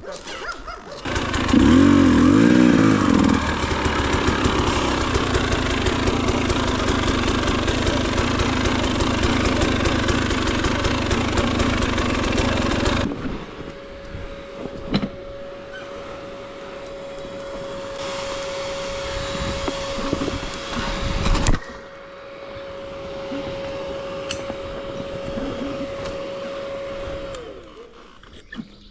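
Enduro motorcycle engine revving up close by, then running steadily until it cuts off abruptly about halfway through. After that a quieter, steady engine hum with a single held tone goes on until near the end.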